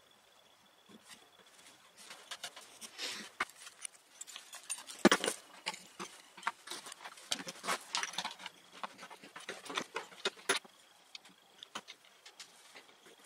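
Handling noises: a plastic-bodied Skil belt sander and hand tools being picked up, turned over and set down on a wooden workbench, giving scattered knocks, clicks and rattles. The sharpest knock comes about five seconds in. The sander's motor is not running.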